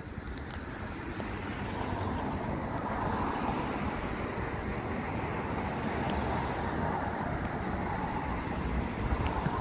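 Steady street traffic noise, a hum of passing vehicles that grows louder over the first few seconds and then holds.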